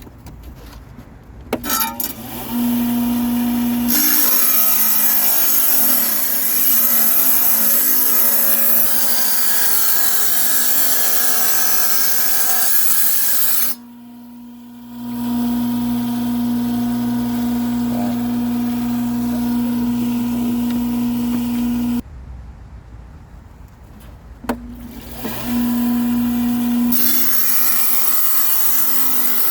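Tile saw cutting Lake Superior agate stones: a steady motor hum under a loud grinding hiss as the blade works through the rock. The saw starts about two seconds in, goes quiet briefly around the middle, and stops again for a few seconds before the cutting resumes near the end.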